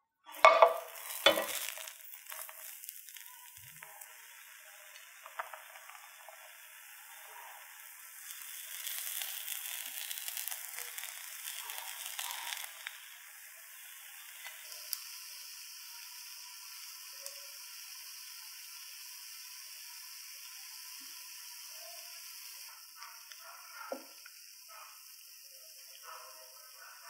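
A noodle-and-egg pancake sizzling as it fries in hot oil in a nonstick frying pan. A loud burst of sizzling comes as it slides into the pan about half a second in, then settles into a steady frying hiss, louder for a few seconds in the middle.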